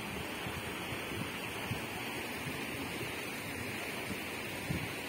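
Steady rush of a wide river running over rocky shallows and small rapids, with low bumps on the microphone now and then, one louder near the end.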